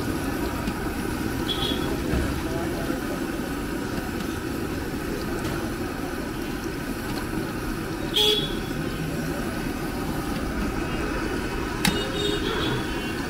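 Busy street ambience: a steady rumble of passing traffic over deep-frying oil bubbling in a large wok, with a brief high-pitched horn toot about eight seconds in and a sharp click near the end.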